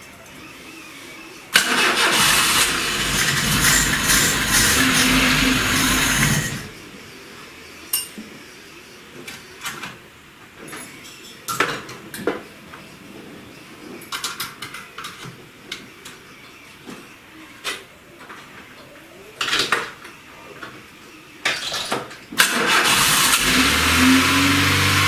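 VAZ-21099's carburettor four-cylinder engine being cranked by its starter for about five seconds without catching, with a short burst later on; near the end, on the third try with the choke pulled, it starts at once and settles into a steady run. This is its first start after a cylinder head rebuild.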